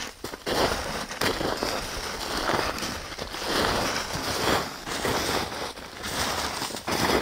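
Footsteps crunching through snow, a series of uneven steps.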